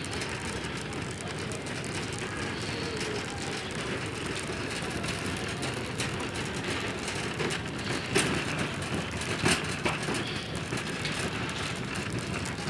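Shopping cart rolling over a tiled store floor, its wheels and wire basket rattling steadily, with a few sharper clacks in the second half.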